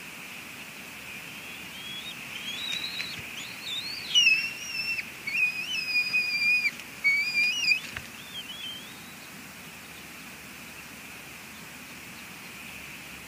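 Bald eagles calling: a run of high, thin, whistling calls that builds from about a second and a half in, is loudest and longest through the middle, and trails off near the end. The calls come as a parent lands at the nest. Under them is a steady high hiss.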